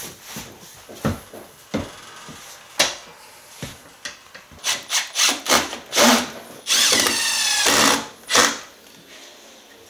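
A few wooden knocks on the ladder's treads, then a cordless drill-driver whirring in short bursts and for about a second near the end as it drives a screw through a foot cap into the ladder's wooden stile.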